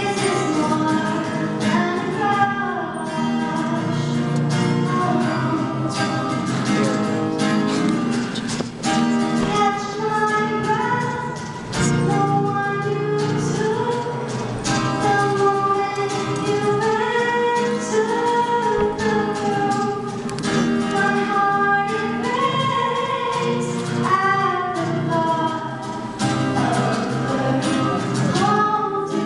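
A duet of two singers performing a song live with instrumental accompaniment.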